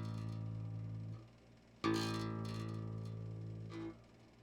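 Bajo quinto's thick A-course string plucked and left to ring as a reference tuning note; the ringing stops about a second in, the string is plucked again just before two seconds and rings until it is damped shortly before the end.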